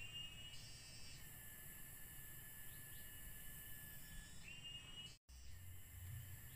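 Steady chorus of insects from the forest, several high, even tones held together, with a short rising whistled note at the start and another about four and a half seconds in. Under it there is a low rumble, and all sound drops out for a moment about five seconds in.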